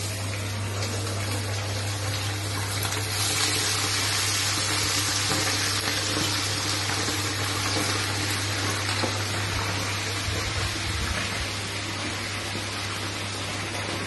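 Chicken pieces deep-frying in hot oil in a kadai, a loud steady sizzle that grows louder and brighter about three seconds in. A steady low hum runs underneath.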